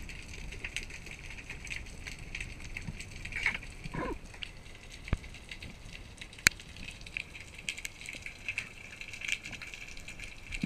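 Underwater sound picked up by a submerged action camera: a steady fine crackling and fizzing, scattered sharp clicks, and a brief gurgle about four seconds in. A single sharp click about six and a half seconds in is the loudest sound.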